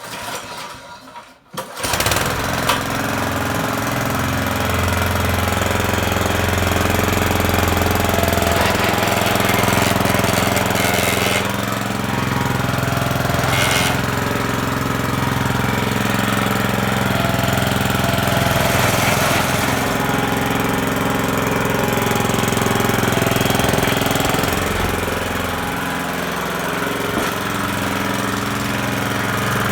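Toro Greensmaster 1600 reel mower comes in abruptly about two seconds in and runs steadily, its engine note overlaid by a dense, rapid rattling clatter. This is the noise the mower makes when its drive is engaged.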